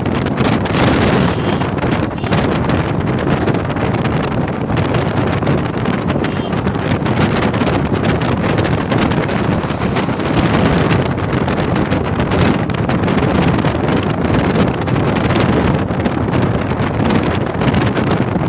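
Steady wind noise buffeting the microphone inside a moving vehicle, with road and engine noise beneath it.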